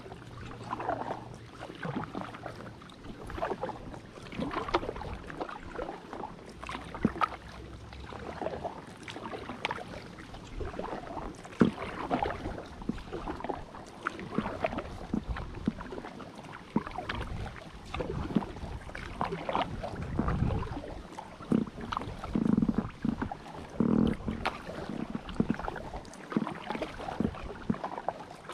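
Kayak paddle strokes in water: rhythmic splashes and drips, with small knocks and some stronger strokes near the end.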